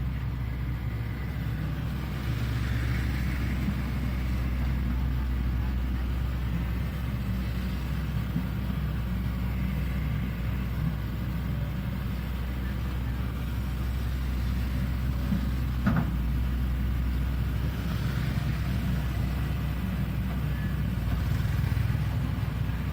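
Shantui excavator's diesel engine running steadily under working load, with a single sharp knock about two-thirds of the way through.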